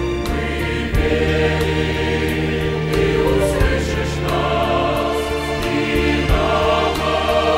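Mixed church choir of men's and women's voices singing a Russian-language hymn, holding long chords that change every second or two.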